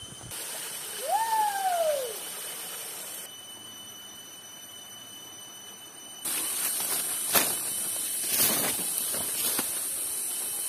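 Outdoor vegetation ambience: a high, steady insect drone that cuts in and out abruptly between shots. About a second in there is a single bird call that rises and then falls, and later a few faint knocks.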